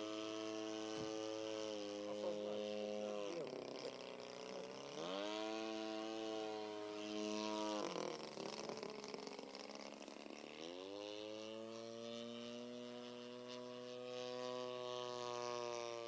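The twin-cylinder opposed (boxer) two-stroke petrol engine of a radio-controlled Yak-54 model plane running in flight. Its note drops sharply twice, about three seconds in and again about eight seconds in, and each time climbs back to a steady high pitch.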